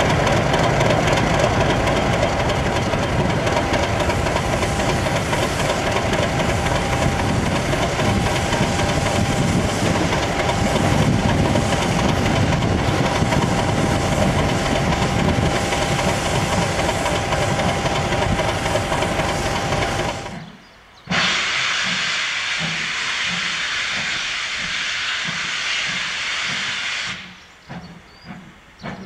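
Class 50 diesel locomotive's English Electric engine running with a steady whine as the locomotive pulls slowly away, over a hiss of steam. After a break about 20 seconds in, steam blows off in a loud hiss for about six seconds and cuts off suddenly, leaving a faint rhythmic beat.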